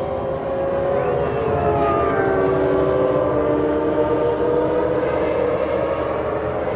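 Several Formula One cars' 3.0-litre V10 engines running at high revs together, their overlapping pitches sliding slowly up and down.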